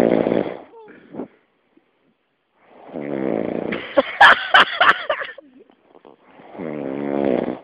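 A sleeping man snoring, three long snores a couple of seconds apart, the middle one breaking into a rattling crackle.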